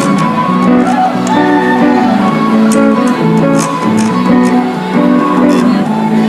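Instrumental music: a steady run of pitched notes that ring on and overlap, in the manner of plucked strings.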